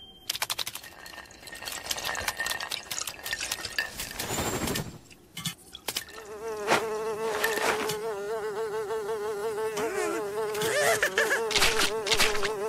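Cartoon sound effects: a run of quick taps and clicks. From about halfway a steady buzzing tone with a wavering pitch comes in and holds until the end.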